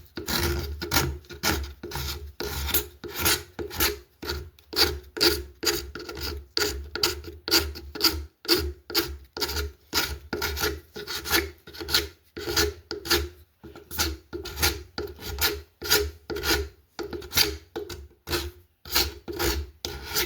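Burred paint scraper scraping dried hot glue off an oak lampshade, in quick repeated strokes of about two a second.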